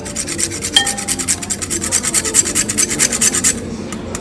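Food being grated by hand on a long metal rasp grater onto a plated dish: quick, even back-and-forth scraping strokes, about ten a second, that stop about three and a half seconds in.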